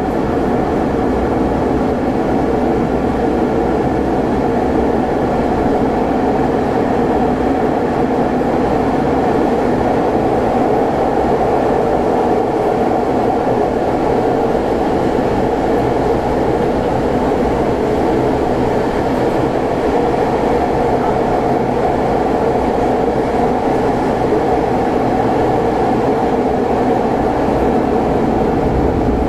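Athens Metro Line 1 train running, heard from inside the carriage: a loud, steady travelling noise that stays even throughout, with no distinct wheel clicks.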